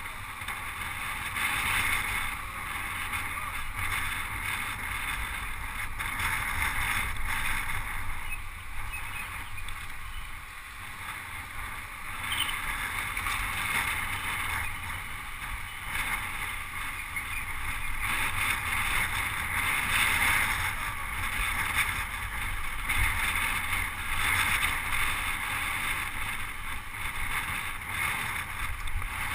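Wind rushing over the microphone of a camera riding on a road bicycle in a moving pack, with low rumble from the road, as a steady hiss that swells and eases in loudness.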